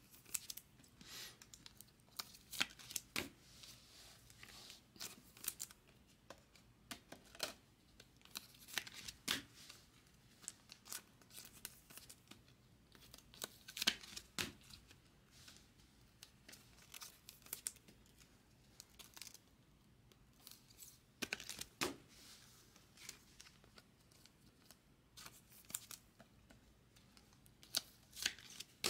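Chrome trading cards being slid into soft plastic penny sleeves and rigid plastic toploaders: faint, irregular rustling with sharp little plastic clicks and scrapes. A few clicks stand out louder, near the middle and again later on.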